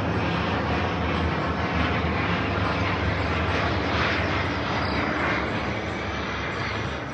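Aircraft engine passing overhead: a steady drone with a low hum, loudest around the middle and easing a little toward the end.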